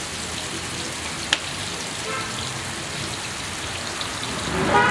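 Steady crackling sizzle of food frying in hot oil in a large pilaf cauldron, with one sharp click about a second and a half in.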